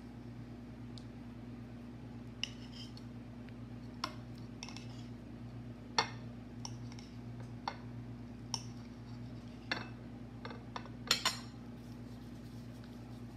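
A kitchen knife clinking against a ceramic plate while fresh mozzarella is cut into pieces: a dozen or so scattered light clicks, with a sharp one about six seconds in and a quick cluster near the end. A steady low hum runs underneath.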